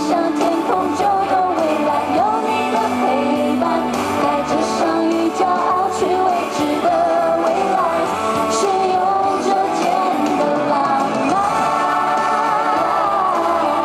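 Live pop song over a stadium sound system: a voice singing a wavering melody over full band backing, heard from the stands.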